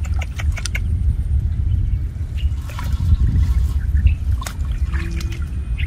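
Water trickling and splashing over a steady low rumble, with scattered sharp clicks.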